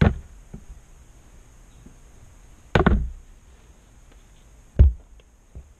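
Three loud, sharp thumps about two seconds apart, the middle one a quick double, with a faint fourth one near the end.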